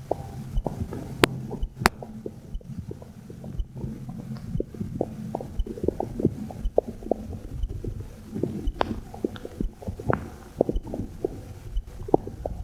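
Stomach and intestinal gurgling heard through a phone microphone pressed against the belly: many quick wet pops and clicks over a low rumble, with a faint heartbeat pulsing underneath about once a second.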